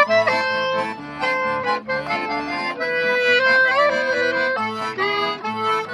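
Traditional folk tune played by a trio of diatonic button accordion, clarinet and plucked acoustic guitar.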